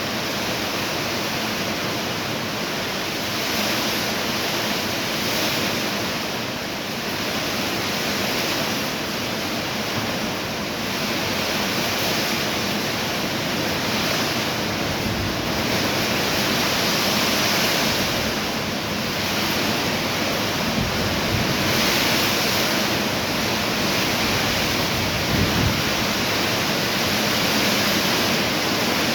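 Steady rushing hiss with no clear pitch, with a few faint low bumps near the middle and later on.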